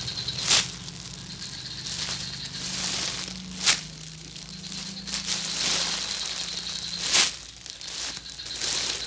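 Crinkling, crushing handling noise as a squishy toy is handled, with sharp crackles about half a second, three and a half seconds and seven seconds in.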